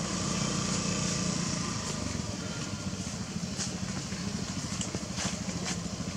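A small engine idling steadily off-picture, a low, rapidly pulsing hum, with a few faint clicks in the second half.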